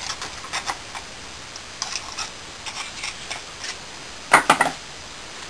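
Steel bar scraping and tapping on a hot, freshly poured sand casting held in tongs, knocking off moulding sand, with light scattered clicks and a quick run of several harder metal knocks about four seconds in.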